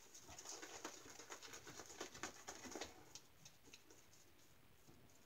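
Soft, quick crackling swish of a synthetic-knot shaving brush working soap lather over a stubbled face, lathering up for the second pass. It is busiest for the first three seconds and thins out after that.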